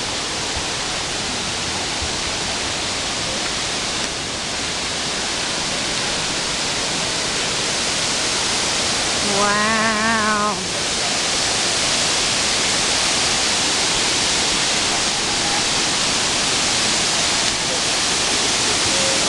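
Waterfall rushing steadily, a loud, even wash of falling water that grows slightly louder. About halfway through, a person's voice sounds briefly over it.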